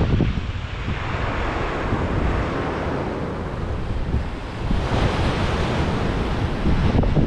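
Rough, storm-driven surf breaking and washing on a rocky shore, a continuous noise that swells and ebbs. Wind buffets the microphone with an uneven low rumble.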